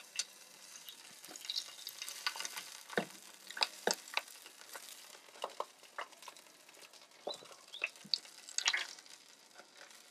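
Fat sizzling and spitting under a spit-roasting chicken on a grill: a faint hiss with irregular sharp pops and crackles.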